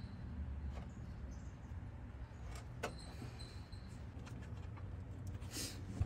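Quiet handling sounds of a wire being pushed and fed down through the engine bay: a few small clicks, the sharpest about three seconds in, and a brief rustle near the end, over a low rumble.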